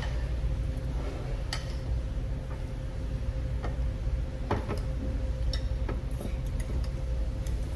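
Stainless steel chopsticks clicking and clinking against ceramic bowls and plates during a meal: a scattered handful of short separate clinks, the loudest about halfway through, over a steady low hum.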